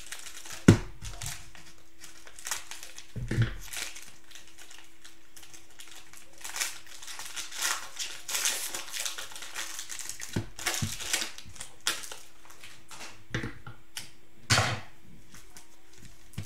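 The plastic cellophane wrapper of a Panini Prizm basketball cello pack crinkling and tearing as it is opened, then trading cards being handled, in irregular rustles. A sharp knock a little under a second in is the loudest sound, with a few smaller knocks later.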